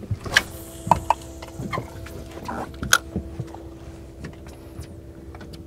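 A string of short clicks and knocks from handling a spinning rod and reel aboard a small boat, over a steady low hum.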